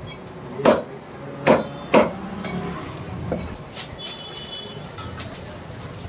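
Meat cleaver chopping chicken pieces on a wooden chopping block: three heavy chops within the first two seconds, then a lighter knock.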